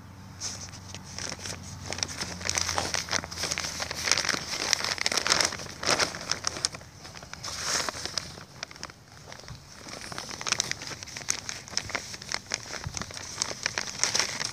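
Plastic grow bag crinkling and crackling as it is gripped and folded by hand, in a dense irregular run of small crackles.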